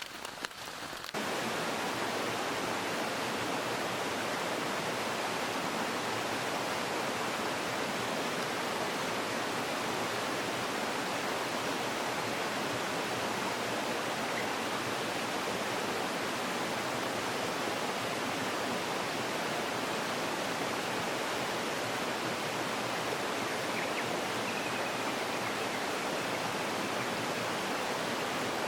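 Steady, even rushing of water, beginning abruptly about a second in and holding without a break.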